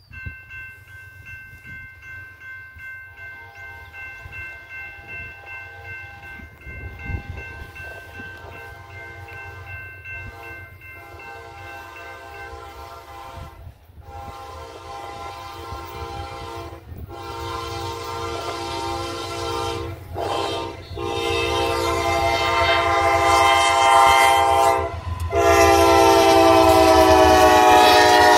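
Air horn of a Kansas City Southern de México diesel locomotive sounding a series of long blasts with short breaks, the crossing signal for a grade crossing, growing steadily louder as the train approaches. The low rumble of the diesel engines runs underneath, and over the last few seconds the horn's pitch drops as the lead locomotive passes.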